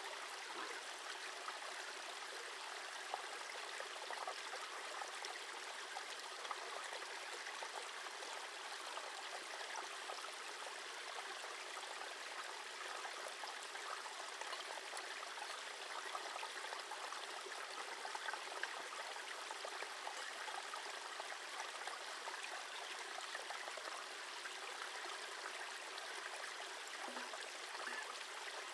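A burn (small stream) running with a steady rush of flowing water.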